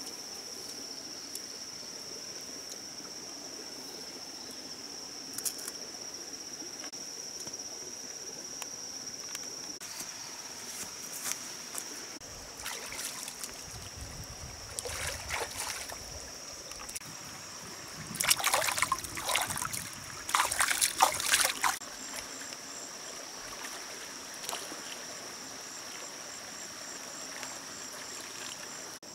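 Shallow forest stream trickling under a steady, high-pitched insect drone. Past the middle comes water splashing in several loud bursts, as a person washes in the stream.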